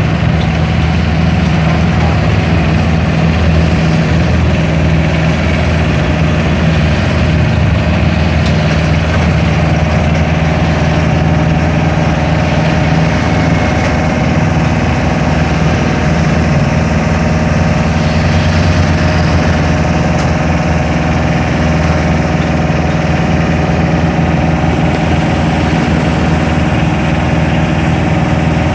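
Iseki Frontier mini combine harvester's diesel engine running at a steady idle.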